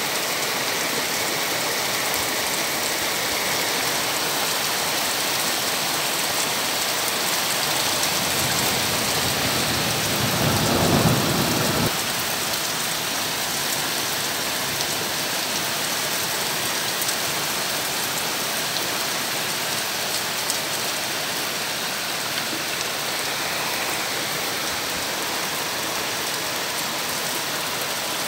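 Heavy rain pouring steadily onto gardens and shed roofs, a dense even hiss. Near the middle a low rumble builds over a few seconds and then stops abruptly.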